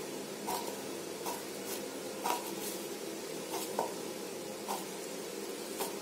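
Kitchen knife slicing through petai (stink bean) pods onto a cutting board: short, irregular taps, about one or two a second, over a steady low background hum.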